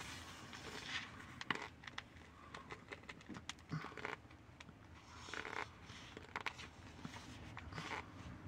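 Dry white powder crunching and squeaking in short irregular bursts as hands squeeze and dig through a heaped bowl of it.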